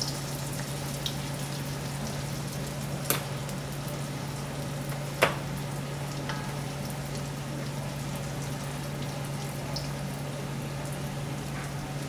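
Steady hiss of food cooking in a pan or pot on a burner, over a low steady hum. Two sharp clicks come about three and five seconds in, the second louder.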